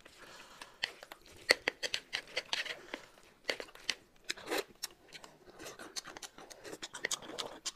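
Close-miked eating sounds: chopsticks stirring and lifting a plate of noodles, with many irregular sharp clicks and a few wet smacks.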